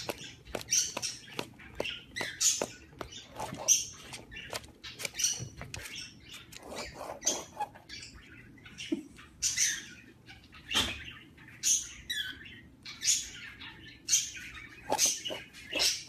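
Sun conure giving short, high squeaky chirps about once a second, with many quick clicks in between.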